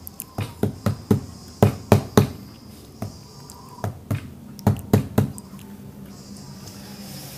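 Upturned flan mold knocked sharply against a paper plate on a table, to loosen the flan so it drops out. Two runs of quick knocks: one in the first two seconds, another from about three to five seconds in.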